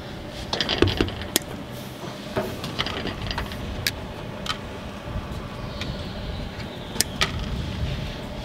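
Hand wire strippers clicking and snipping on a solar cable's ends, stripping them for splicing: a handful of short sharp clicks at uneven intervals over a steady low rumble.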